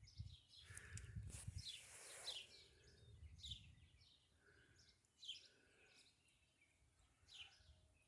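Faint chirping of small birds: short, high, falling calls repeated every second or so. A low rumble runs under the first two seconds.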